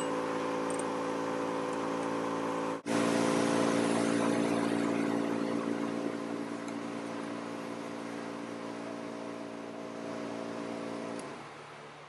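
A motor running with a steady hum of even tones. It cuts out for a moment about three seconds in, then stops about eleven seconds in, leaving a faint hiss.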